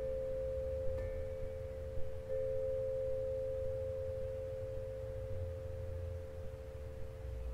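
Soft ambient background music: a held drone of two close, steady tones over a low rumble, growing stronger a little after two seconds in, with faint clicks about one and two seconds in.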